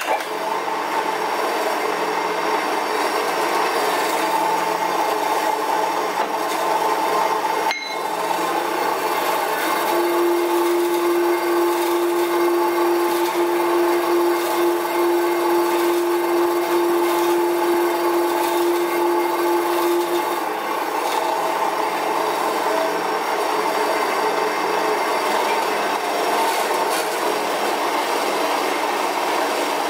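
A 7x12 horizontal metal-cutting bandsaw running and cutting through a 1.5-inch aluminum round bar, a steady rasping of the blade in the metal. There is a sharp click about eight seconds in, and a steady tone sounds from about ten to twenty seconds in.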